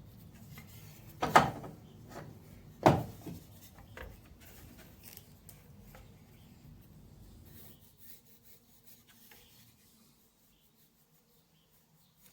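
Offcut of 5x2 timber being handled: two loud wooden knocks about a second and a half apart, a lighter knock after, then faint rubbing and small clicks that die away.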